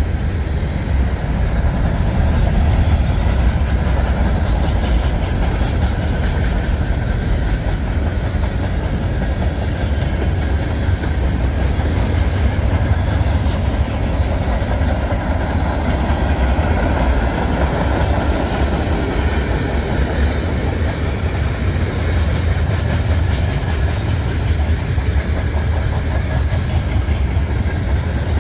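Freight cars of a passing train rolling by: a steady noise of steel wheels running on rail, strongest in the low end, with faint wheel clicking throughout.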